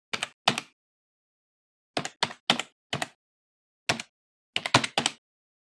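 Computer keyboard keystrokes as a typing sound effect: about eleven separate key clicks in uneven bursts, each a quick press-and-release double click, with dead silence between.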